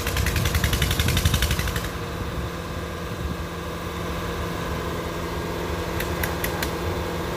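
Diesel engine running steadily, with a rapid clattering for about the first two seconds, then a few sharp clicks near the end.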